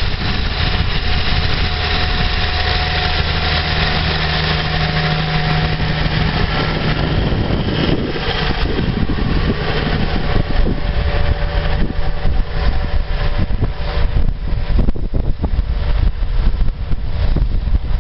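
Massey Ferguson 3120 tractor's diesel engine running steadily while pulling a disc harrow. Gusty wind buffets the microphone through the second half.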